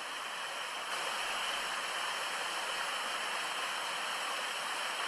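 Inglis Falls, an 18-metre waterfall, rushing steadily, at full volume with spring meltwater; the rush grows a little louder about a second in.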